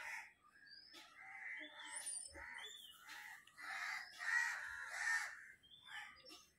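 A puppy whining in a run of short, high-pitched, rising-and-falling cries, thickest about four to five seconds in: distress whining at being left shut in its crate.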